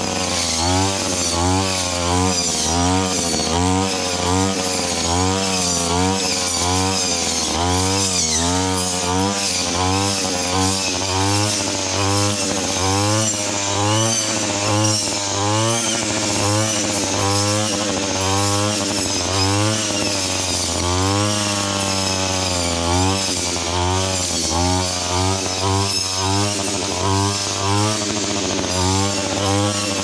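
Engine-driven brush cutter running at work in undergrowth, its engine pitch rising and falling over and over, about once a second, as the blade swings through the brush.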